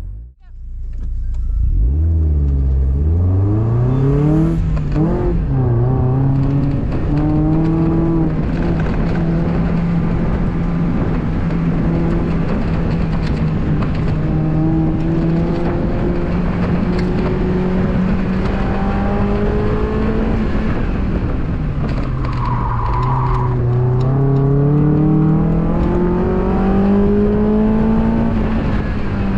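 2002 Mazda Miata's four-cylinder engine during an autocross run. It revs up hard through the gears in the first few seconds and holds fairly steady revs for a long stretch. About three-quarters of the way through, the revs drop with a brief squeal, then climb again.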